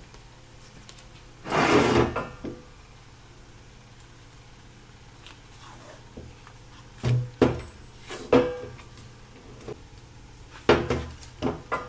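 Blue painter's tape being pulled off the roll in short ripping pulls. The longest and loudest comes about a second and a half in, and more follow in two clusters near the middle and the end.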